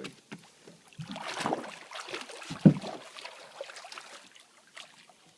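A hooked alligator is hauled halfway into a small boat, with water splashing and knocks against the hull. One heavy thump comes about two and a half seconds in.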